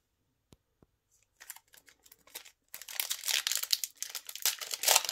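A Yu-Gi-Oh! booster pack's foil wrapper crinkling and tearing as it is opened by hand. After two faint ticks the crinkling starts about a second and a half in and turns loud and continuous from about three seconds.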